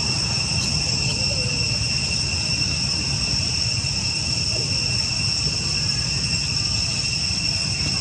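Steady, high-pitched drone of insects, one unchanging tone with a fainter higher overtone above it.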